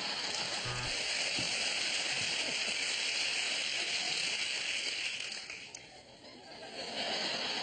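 Studio audience laughing and applauding after a punchline, a dense steady clatter that dies down briefly about six seconds in and then picks up again.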